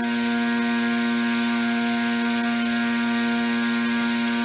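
Brushless drone motor spinning a 3D-printed propeller at full throttle: a steady hum at one unchanging pitch with a hiss of air from the prop. The prop is deliberately unbalanced, so the motor tip wobbles as it runs.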